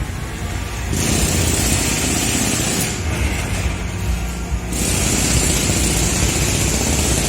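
Heavy construction machinery engine running steadily with a low rumble, overlaid by a high hiss that drops out twice and comes back.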